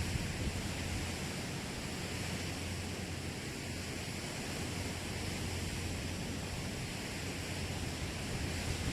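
Ocean surf washing on a shore, heard as a steady, even hiss with no distinct breaking crashes, over a low steady rumble.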